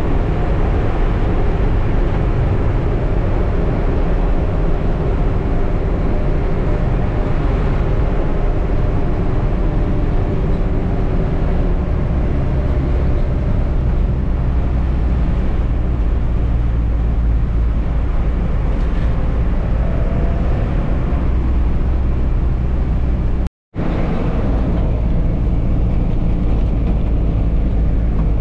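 Cabin sound of a moving bus: its 2009 Hyundai diesel engine running with road rumble, the engine note slowly rising and falling with speed. The sound breaks off for a split second about three quarters of the way through.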